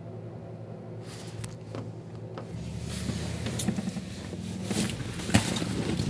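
A steady low hum from a running machine. From about a second in, rustling and several sharp knocks come in as the phone is handled and moved, and the hum deepens and grows louder about halfway through.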